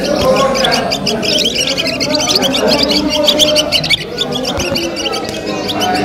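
Many small caged songbirds chirping and twittering rapidly, their calls overlapping, over a low murmur of voices.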